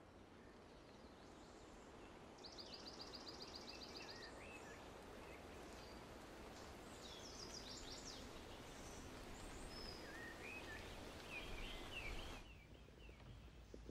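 Faint woodland ambience with small birds calling: a quick trill of about a dozen high notes some two and a half seconds in, then scattered chirps and twittering later on, over a soft hiss.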